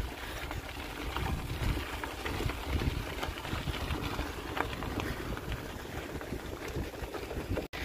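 Bicycle rolling over a rough road of gravel and loose stones: tyres crunching and rattling, with a few small clicks. Wind rumbles on the microphone.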